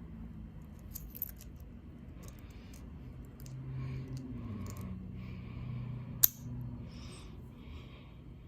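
A steel warded pick scraping and clicking inside a 40 mm warded padlock as it is worked past the wards, with one sharp metallic click about six seconds in.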